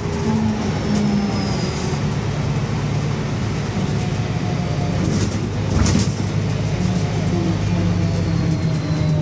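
Loud Cummins diesel engine of a VMZ-4252 city bus running steadily under way, heard from inside the passenger cabin, over tyre hiss on a wet road. A single knock about six seconds in.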